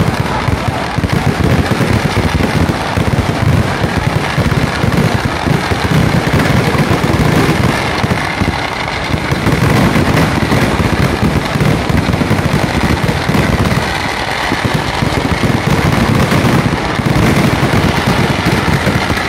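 Festival fireworks display: a dense, unbroken barrage of exploding firecrackers and shells, easing a little about eight seconds in and again around fourteen seconds.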